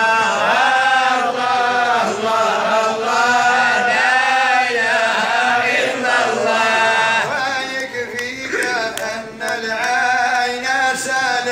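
A group of men chanting Sufi madih (devotional praise poetry) together in one sustained, gliding melody. Sharp hand claps join from about eight seconds in.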